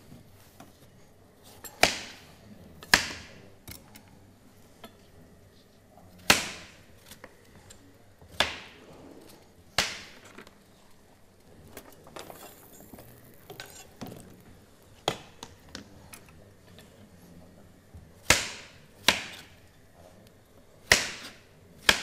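Kitchen knife chopping pumpkin on a cutting board: about ten irregular sharp chops, each with a short ringing tail.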